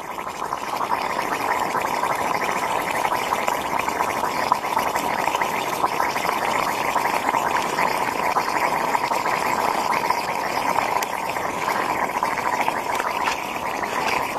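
Flames burning on the surface of lake ice: a steady rushing noise with small crackles throughout.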